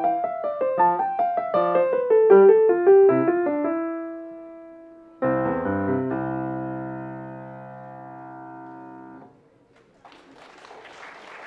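Steinway grand piano played: quick running notes slow and settle on a held note, then a loud final chord struck about five seconds in rings for about four seconds and is cut off. After a brief silence, audience applause begins near the end.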